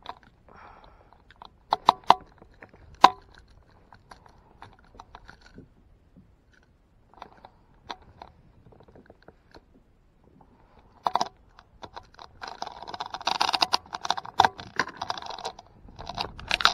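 Hands handling fishing gear on a kayak close to the microphone: scattered sharp clicks and knocks, a few loud ones in the first three seconds, then from about 12 seconds in a dense run of scraping and rustling.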